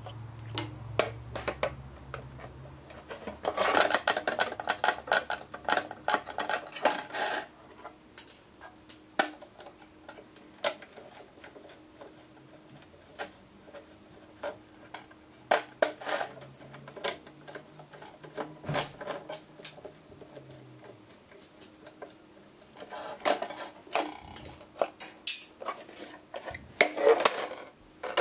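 Screwdriver undoing screws in an automotive engine control module's metal case and circuit board on a steel workbench: scattered metallic clicks and clinks, with two spells of denser scraping and rattling, a few seconds in and again near the end.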